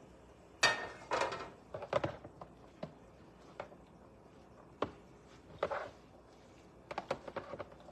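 Kitchen handling noises: a short rustle-like burst less than a second in, then scattered single clicks and knocks of things being set down and handled at the counter while a meat mixture is put together in a bowl.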